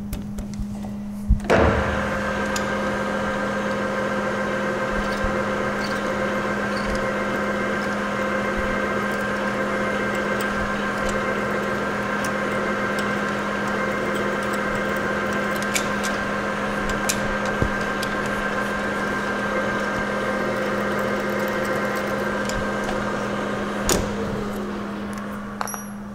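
Emco manual lathe switched on with a click, its spindle and gearbox running with a steady whine while a twist drill held in the tailstock chuck is fed into the spinning aluminium bar. Near the end it is switched off and the spindle winds down with a falling whine.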